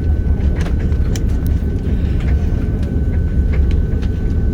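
Cabin noise of an Airbus A330-300 on the ground after landing: a steady, heavy low rumble with a thin steady tone above it and a few faint rattles.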